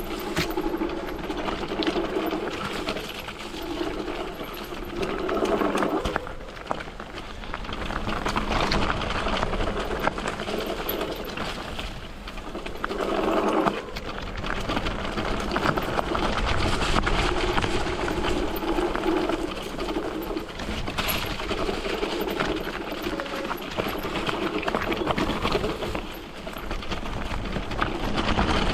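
Electric trail bike ridden over a mountain trail: its motor hum swells and fades as the rider works the throttle, over steady tyre, gravel and rattle noise.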